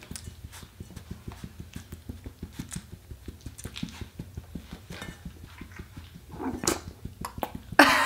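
A young chocolate Labrador-mix puppy burps once, about six and a half seconds in, after being fed and held upright to burp; faint soft taps come before it, and a louder burst starts right at the end.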